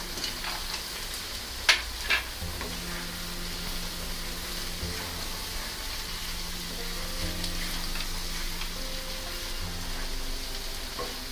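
Onion and tomato masala sizzling steadily as it is fried and stirred in a pan, with a couple of sharp clicks of the spoon against the pan about two seconds in.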